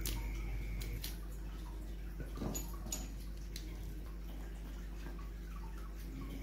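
Faint plastic clicks and rattles as a battery is pulled out of a toy train locomotive's battery compartment, after a faint steady whine that stops about a second in.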